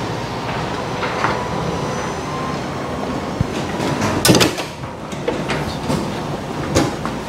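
Sectional garage door rolling up on its opener, a steady rumbling run with a faint whine, with a loud knock about four seconds in and a smaller one near the end.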